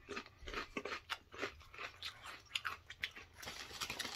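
A person chewing a mouthful of crunchy ridged potato chips (Flamin' Hot Ruffles) with the mouth closed: a steady run of quick crunches, several a second.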